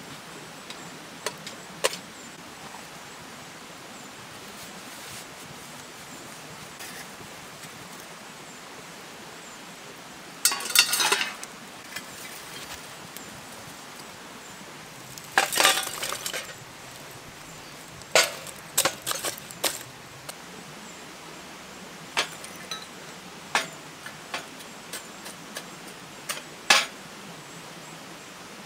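Sharp metallic clinks and scrapes in scattered bursts as the wood fire under a galvanized bathtub is tended and embers are handled around a small metal pot, over a steady faint background hiss.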